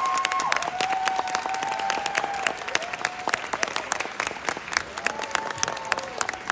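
Theatre audience applauding, many hands clapping, easing off slightly toward the end.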